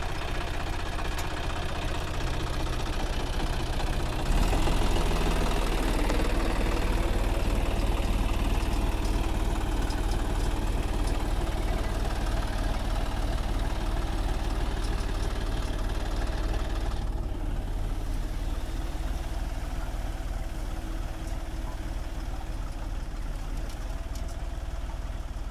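John Deere 5050 D tractor's three-cylinder diesel engine running steadily while pulling a potato planter, getting louder about four seconds in.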